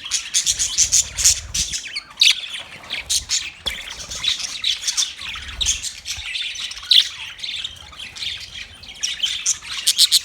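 A flock of budgerigars chirping and chattering continuously, many short overlapping calls and squawks.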